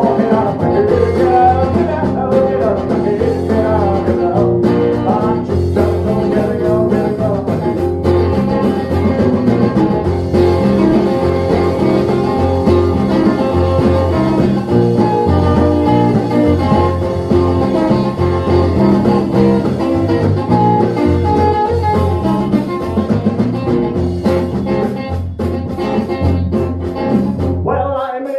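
A small band playing a song live: strummed acoustic guitar, electric bass and drums, with a man singing.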